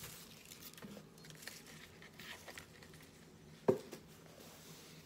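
Faint rustling of a cardboard gift box and cloth dust bag being handled, with one short knock about three and a half seconds in.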